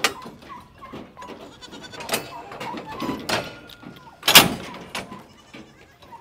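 Goats bleating: several separate calls, the loudest a little past four seconds in.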